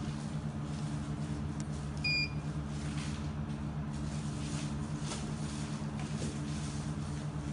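Laser welding machine running with a steady, even hum, from its water cooling and fans. One short electronic beep sounds about two seconds in as its touchscreen is pressed.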